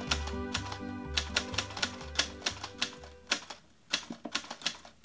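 Typewriter keys clacking in a quick, irregular run, a typing sound effect, over soft background music that stops a little past halfway through.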